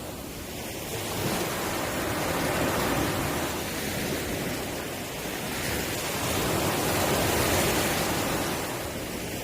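Sea waves washing onto a shore: a steady rushing that swells and eases several times, strongest around the middle and again near the end.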